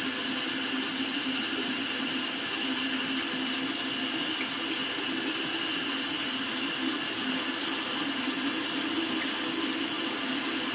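Water running steadily, an even unbroken rush.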